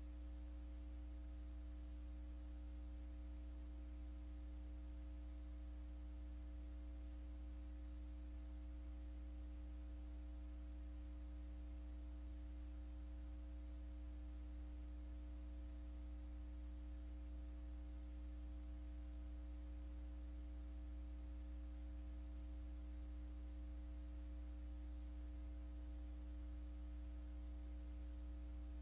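Steady low electrical mains hum, with several fainter higher tones above it and a faint hiss, unchanging throughout.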